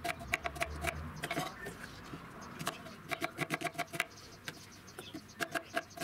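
Kitchen knife slicing a red onion into half rings on a plastic cutting board: quick runs of sharp taps as the blade meets the board, several a second, in three runs with short pauses between them.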